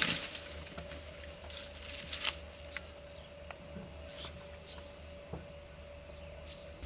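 Faint outdoor ambience under a steady low hum and a high hiss, with scattered soft ticks. There is a brief crackle at the start and another about two seconds in.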